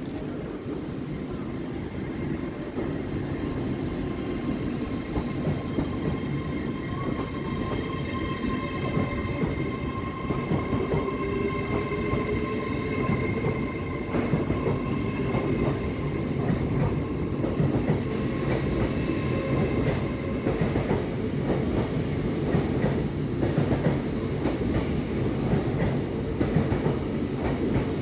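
LNER Azuma high-speed train pulling away from a platform and accelerating past: a steady rumble with several whining tones from the traction equipment, one rising in pitch as it picks up speed. Wheels click over the rail joints more and more as the carriages go by in the second half.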